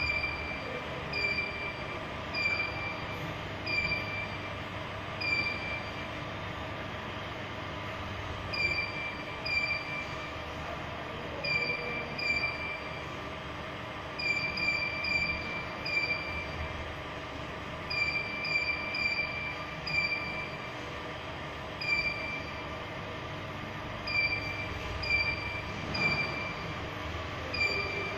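Touchscreen control panel of a check weigher beeping at each key press: about two dozen short high beeps at irregular intervals, often two or three in quick succession, over a steady mechanical hum of machinery.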